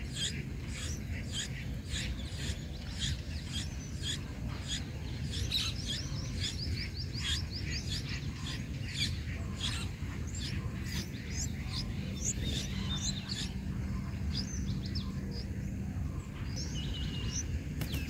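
Nestling birds cheeping in the nest, a run of many short, high chirps repeated throughout as they beg for food. Under them is a steady low background noise.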